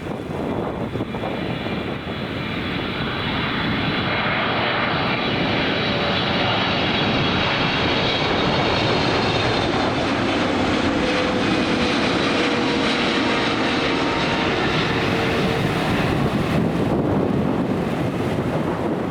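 Jet airliner passing close on approach to land, its engine noise building over the first few seconds and then holding loud, with faint whining tones sliding slowly down in pitch.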